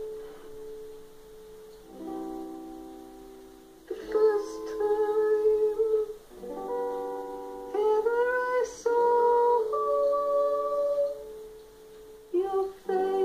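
Acoustic guitar played in slow strummed chords, with a man singing a slow melody over it.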